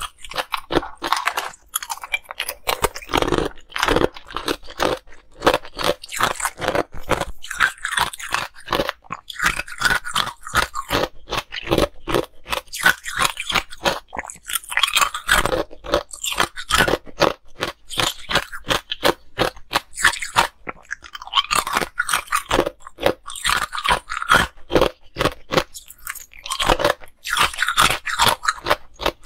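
Close-miked crunching of ice cubes being bitten and chewed: a continuous run of crisp, crackling crunches, several a second.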